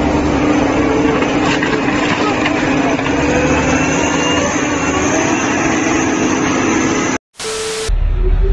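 Heavy dump truck's diesel engine running hard with a steady drone under a noisy wash. It cuts off abruptly near the end and gives way to a short bright hiss.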